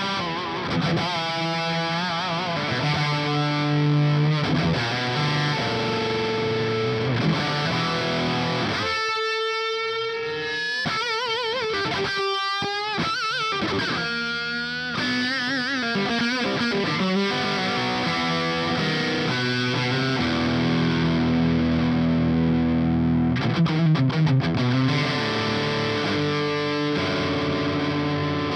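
Distorted electric guitar played through a modified Marshall JCM 900 SL-X 50-watt head with EL34 power tubes, close-miked on a 4x12 cab. Low chord riffing, with a stretch of higher single-note lead lines with wide vibrato in the middle.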